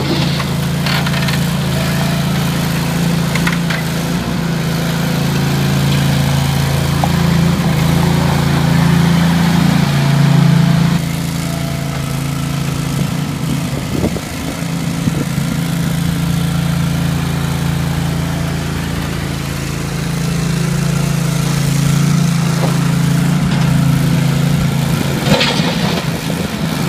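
Ramrod 750A mini skid loader's engine running steadily as the machine works, its sound dropping and changing about eleven seconds in. A few short knocks.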